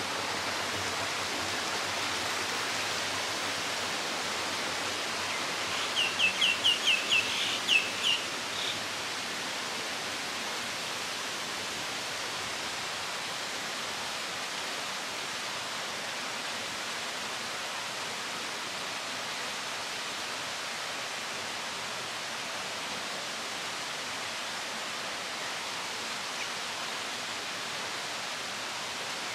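Steady, even rushing outdoor background noise, with a bird calling a quick run of about eight short, high notes about six seconds in.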